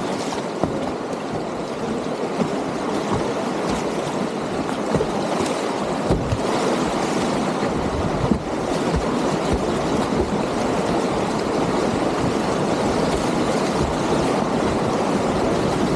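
Whitewater rapids rushing steadily around a kayak, with a few brief sharp splashes.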